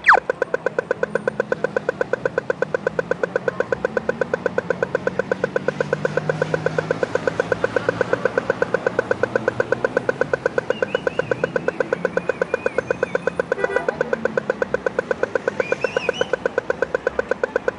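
Pedestrian crossing signal ticking rapidly and evenly, several sharp pitched ticks a second. It starts abruptly and stops near the end, with low traffic noise underneath.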